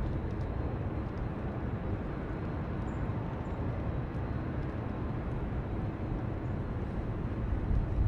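Steady low outdoor background rumble with no distinct events, with a couple of faint short high sounds about three seconds in.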